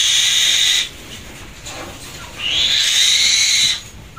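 Captive hawk screeching: long, harsh, hissing screams, one ending a little under a second in and another lasting more than a second near the end.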